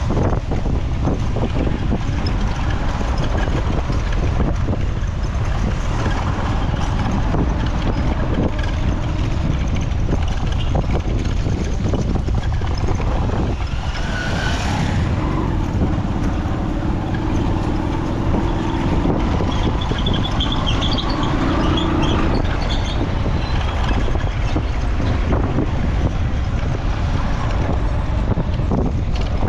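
Road traffic with wind buffeting the microphone, a steady low rumble throughout; a vehicle engine passes about halfway through.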